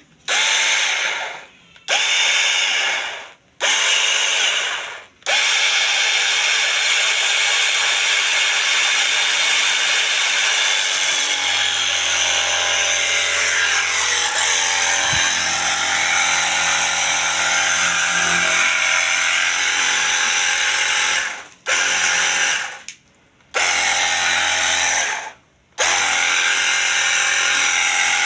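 Battery-powered portable pressure washer running in trigger bursts: the motor whines up suddenly and spins down over about a second each time it is let go. Three short bursts, then a long run of about sixteen seconds, then three more bursts.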